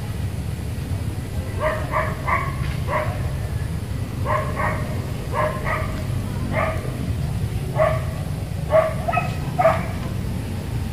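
A dog barking repeatedly, short yaps in clusters of one to four, over a steady low rumble.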